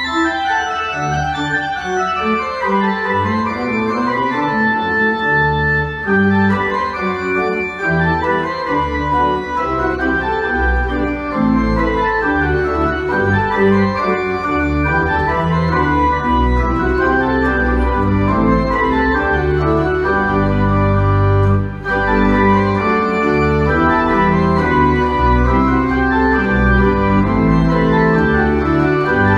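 Church organ playing a full-voiced piece of sustained, moving chords over deep bass notes, with a brief break about three-quarters of the way through.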